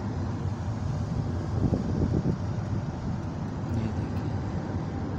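Steady low rumble of a car cruising at highway speed, heard from inside the cabin: tyre and road noise mixed with engine and wind.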